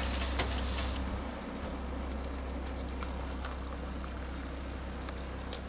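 Hot water running steadily from a tea urn into a cup, with a few light clicks, over a steady low hum.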